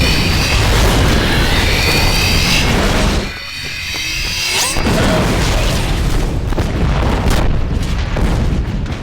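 Sci-fi sound effect of a damaged Venator-class star destroyer: deep rumbling booms under high, slowly rising tones. The sound dips briefly about three seconds in, then builds again and cuts off at the end.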